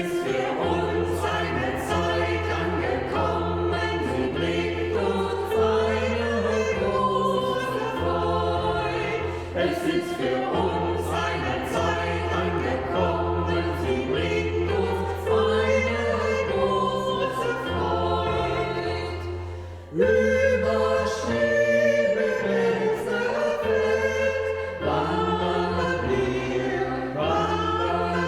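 Choir singing a Christmas song in several voices over steady low accompaniment notes. The singing dips briefly about twenty seconds in, then the next phrase comes in louder.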